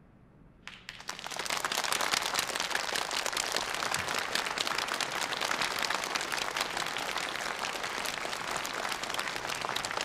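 Large audience applauding: the clapping starts less than a second in, quickly swells, then holds as steady, dense applause.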